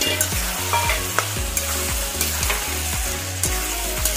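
Green peas frying and sizzling in spice masala in a metal wok, with a steel spatula stirring and scraping against the pan in several irregular strokes.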